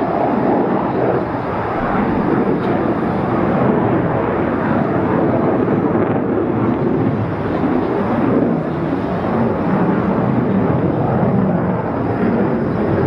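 Avro Vulcan jet bomber flying past, its four Rolls-Royce Olympus turbojet engines making a loud, steady rumble.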